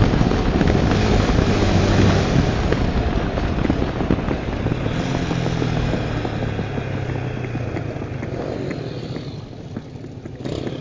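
Tornado 250 motorcycle engine running under way, with wind rushing over the microphone. The wind noise dies down after a few seconds as the bike slows, leaving a steady engine note.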